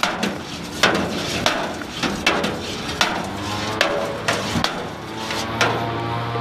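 Long metal spoon stirring in a stainless steel brew pot, clinking and knocking against the pot's sides in quick, irregular strikes about two or three a second, as liquid malt extract is stirred into the wort.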